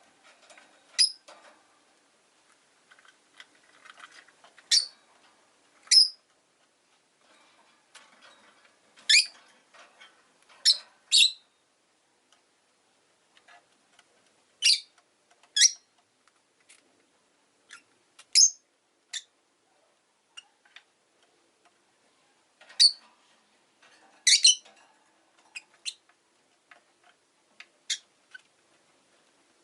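Rosy-faced lovebirds (Agapornis roseicollis) giving short, sharp, high-pitched chirps, some single and some in quick pairs, every second or two with quiet gaps between.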